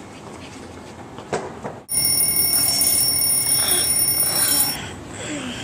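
An electronic ringing tone, several steady high pitches sounding together like an alarm or phone ring, starts suddenly about two seconds in and stops about three seconds later.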